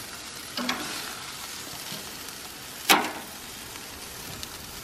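Chicken pieces sizzling on a perforated grill pan over a gas grill, a first searing to about 10–15% cooked. Metal tongs give a soft knock just over half a second in and a sharp clack about three seconds in as pieces are lifted off.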